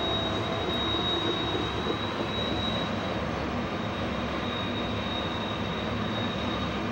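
Heavy freight train with several diesel locomotives descending a steep mountain grade, running with a steady roar from the locomotives in dynamic braking and the rolling cars. A thin, steady, high-pitched wheel squeal from the cars on the tight curve is heard over it.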